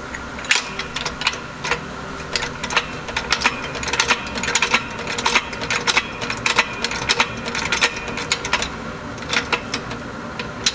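A fast, irregular run of sharp metallic clicks and clanks from the floor jack and jack stand as the heavy truck shifts on a fully extended jack stand and is jacked back up.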